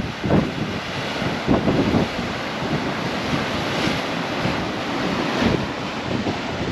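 Wind gusting across the microphone in low buffeting thumps, over a steady rushing noise of ocean surf.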